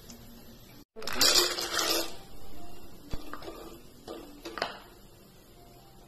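Peeled peanuts frying in hot oil in an aluminium pan: loud sizzling starts about a second in and dies down over the next second or two. A slotted steel spoon stirring them gives a few light clinks against the pan.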